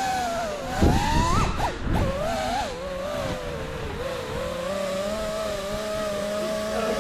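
FPV racing quadcopter's brushless motors and propellers whining. The pitch rises and falls with the throttle, then holds fairly steady in the second half. There are two low thumps about a second apart, near the start.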